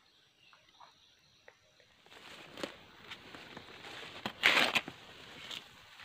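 Quiet at first, then rustling of grass and leaves with footsteps as someone moves through undergrowth, with a loud brushing sweep about halfway through.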